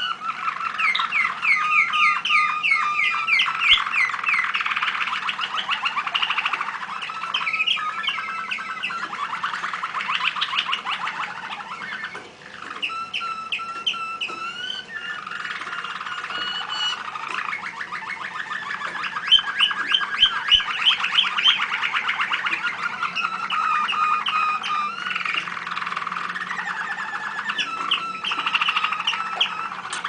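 Canaries singing: a near-continuous run of fast trills and rolls that change pattern every few seconds, with a brief lull about twelve seconds in.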